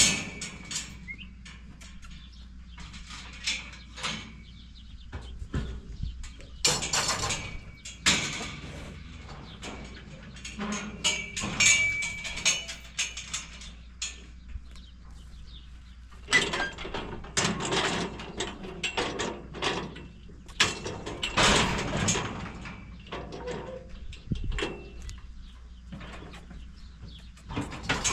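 Steel cattle squeeze chute rattling and clanging with irregular metal knocks and bangs as a cow moves in it and is caught in the headgate.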